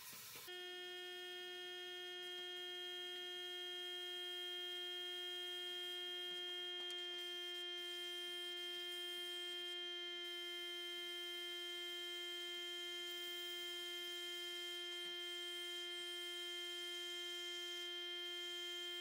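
Small electric motor humming steadily at one fixed pitch, switched on about half a second in.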